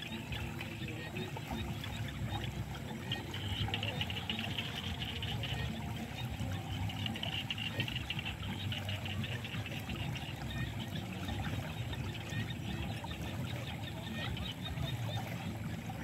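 Muddy water flowing fast and splashing in a steady rush.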